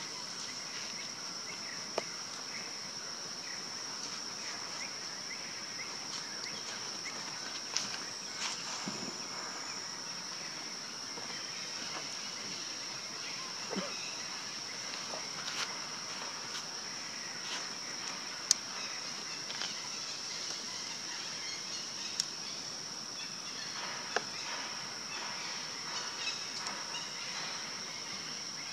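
Steady high-pitched insect drone from a chorus of insects in the woods, with scattered sharp clicks and dry-leaf crackles now and then as the macaques shift on the leaf litter.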